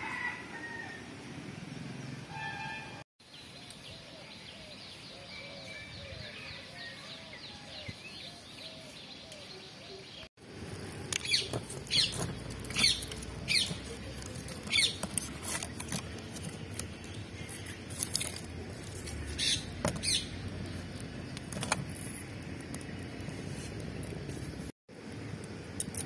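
Firewood burning in a clay mud stove, crackling with irregular sharp pops. Before that, faint bird chirps over quiet outdoor background.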